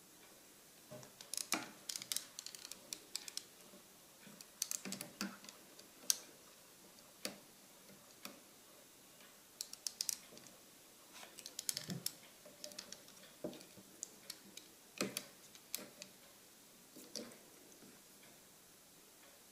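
Irregular bunches of light, sharp clicks and taps, with pauses of a second or two between them; they stop near the end.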